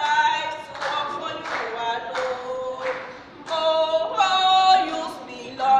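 Unaccompanied singing led by a woman's voice, in long held notes, with a brief dip about three seconds in before it comes back louder.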